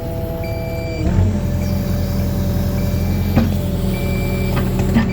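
Cat 305 mini excavator's diesel engine running, with an alarm sounding short repeated beeps. About a second in, the engine takes on hydraulic load: its note drops slightly and a heavier low rumble comes in. Two sharp knocks follow later on.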